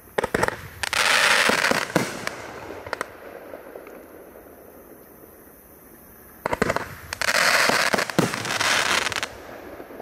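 Boomwow Bling Show BW1548 25-shot consumer firework cake firing. There are two bouts about six seconds apart, each a string of sharp bangs as shells burst, then a dense crackle from crackling stars.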